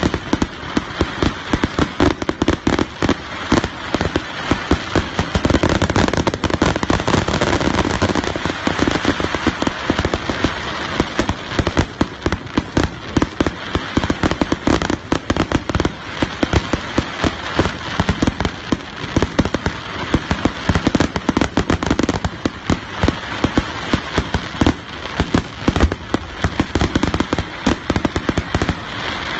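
Aerial fireworks going off in a rapid barrage of bangs and crackling pops, many a second.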